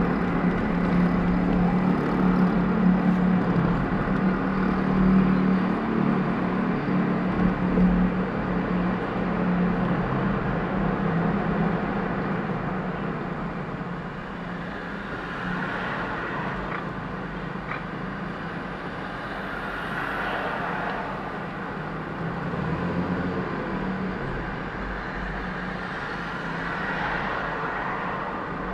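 Car driving through city traffic: steady road, tyre and engine noise, with a low hum that fades out about halfway through.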